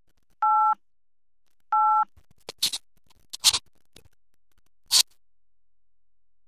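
Two short two-tone telephone-keypad beeps (DTMF), about a second and a half apart, followed by three short sharp swish-like noises, as the sound effect of an on-screen subscribe-button animation.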